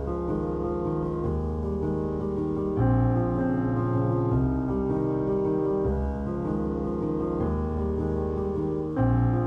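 Background piano music: slow held chords changing about every second, with a louder chord about three seconds in and another near the end.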